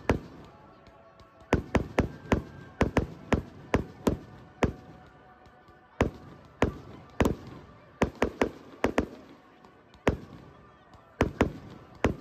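Aerial firework shells bursting overhead in quick, irregular volleys of sharp bangs, about two dozen, with short pauses between the clusters.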